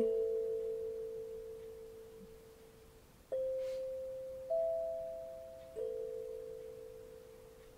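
Metal singing bowls struck one at a time, each giving a clear, nearly pure note that rings on and slowly dies away. A held note fades over the first three seconds, then three new notes of different pitch are struck a little over a second apart.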